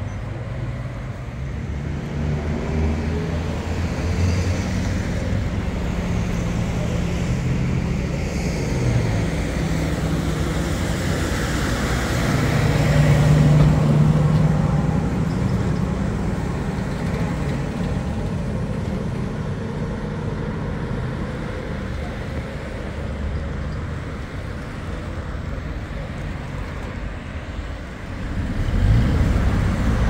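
Road traffic: vehicle engines running steadily, with one vehicle growing louder to a peak about halfway through and the noise rising again near the end.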